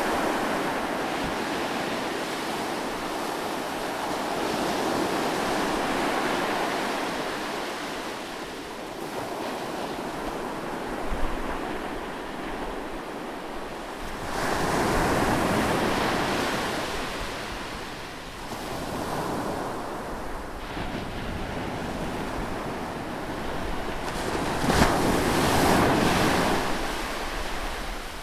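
Sea waves breaking close by on a shore, a continuous rushing wash that swells and ebbs, with two louder surges of breaking surf, one about halfway and one near the end.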